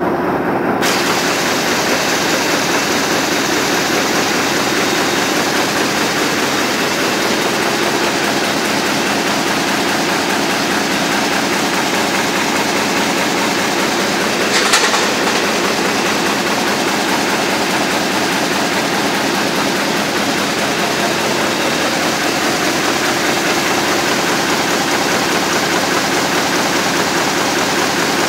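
Heidelberg Speedmaster XL 106 sheetfed offset press, six printing units plus a coating unit, running at full production speed of 18,000 sheets per hour: a steady, dense mechanical noise. One brief sharp click comes about halfway through.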